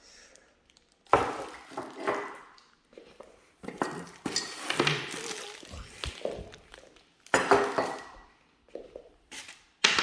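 Metal parts of a flat-pack desk, its iron table legs among them, clanking and knocking as they are handled and set down, several separate clatters.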